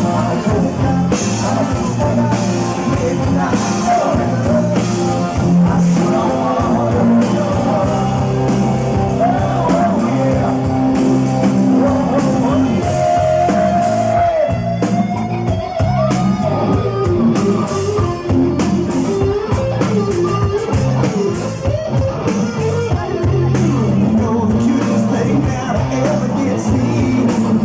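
Live rock band playing loudly, a singer over electric guitar and a steady drum beat.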